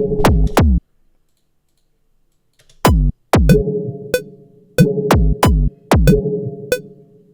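Drum loop made from audio-feedback recordings: a kick whose pitch falls after each hit, and a dark, odd snare-like hit transposed down an octave, playing in a repeating pattern with a ringing pitched tail. It stops just after the start and comes back in about two seconds later.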